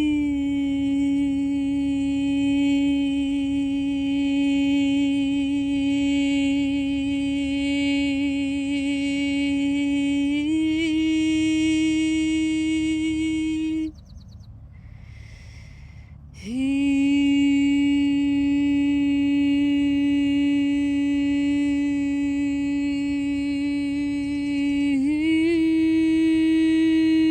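A woman's voice holds long sustained notes, rising slightly in pitch partway through. About halfway through it stops for a breath of a couple of seconds, then slides up back into the note.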